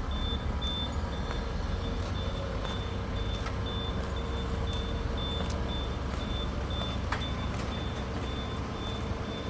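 Vehicle reversing alarm beeping steadily about twice a second over a low engine rumble, with a few faint knocks.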